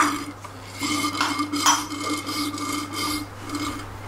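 A long hand tool scraping and clinking against metal parts inside a scooter's floorboard opening, in several short strokes.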